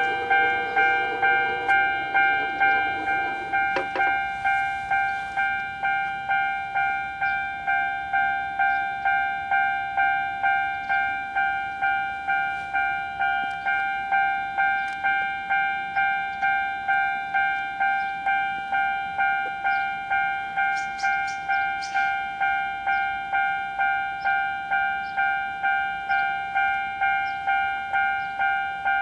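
Japanese railway level-crossing warning bell ringing: an electronic ding repeating quickly and evenly, warning that a train is approaching. It starts abruptly.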